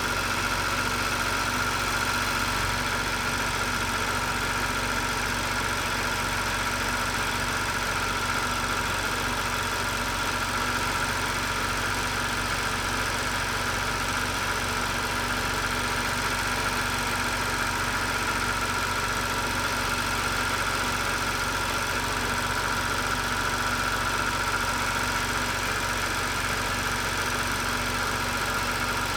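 Car engine idling steadily, heard close up in the open engine bay: a constant drone with a steady high whine over it.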